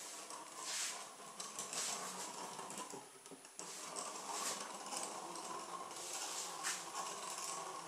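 Small electric hobby motor running steadily on three AAA batteries, which the builder says is less power than it needs, driving a toy three-wheeler's rear CD wheel through a rubber-band belt. It dips briefly about three seconds in, with short noisy swishes every second or so on top.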